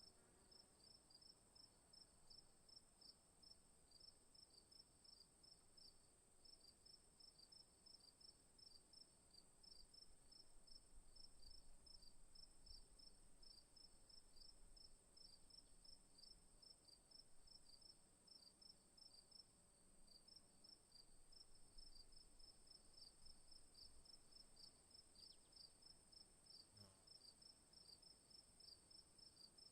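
Crickets chirping, faint: a steady high continuous trill over a lower, evenly repeated chirping of several chirps a second.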